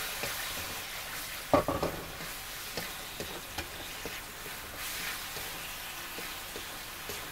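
Beef in black pepper sauce sizzling in an aluminium wok while a spatula stirs and turns it, with scattered light knocks and scrapes of the spatula on the wok. One louder sound about one and a half seconds in.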